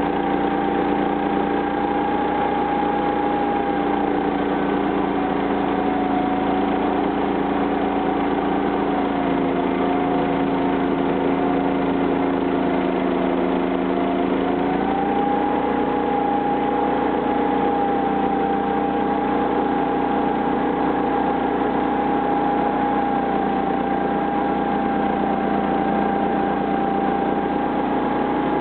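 Homemade band sawmill running, driven by its 13 HP gasoline engine with a steady drone. The engine's pitch sags slightly for about ten seconds, then picks back up about fifteen seconds in and holds steady.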